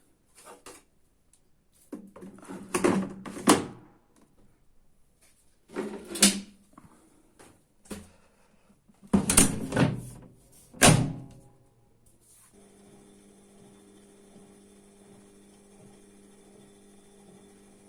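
A series of loud knocks and clunks, then a steady hum starts about two-thirds of the way through and runs on.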